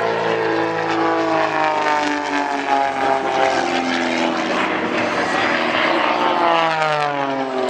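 Aerobatic propeller airplane's engine and propeller running at high power during a display, the pitch falling steadily as it passes by, then rising again near the end.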